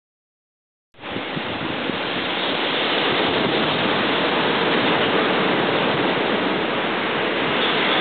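Ocean surf breaking on a sandy beach, a steady rush of waves that cuts in suddenly about a second in, after silence.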